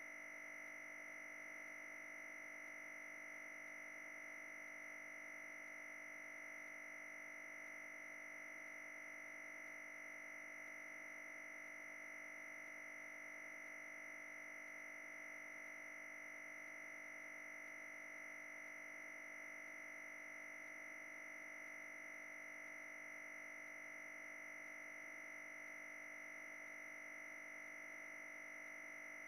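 A steady high-pitched whine made of several fixed tones, unchanging in pitch and level.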